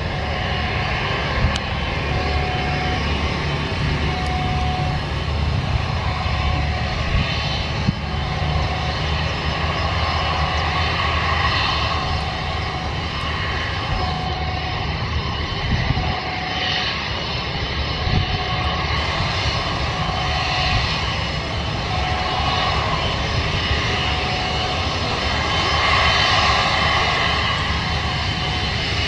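A Batik Air Airbus A320's jet engines running on the runway, a steady distant rumble that swells slightly near the end.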